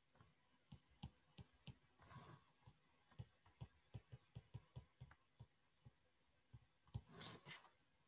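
Faint, irregular light ticks of a stylus tapping and writing on a tablet screen, with a brief soft rustle about two seconds in and another near the end.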